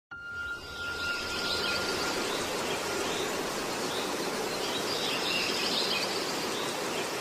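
Steady outdoor background noise with faint bird chirps.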